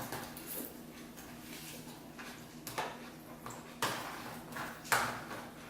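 Spoons clinking and scraping against cereal bowls during eating, with a few sharp clinks in the second half.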